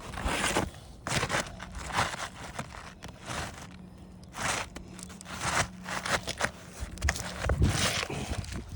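Asphalt shingles being handled and worked on a roof: repeated short scraping and crinkling sounds, about one a second.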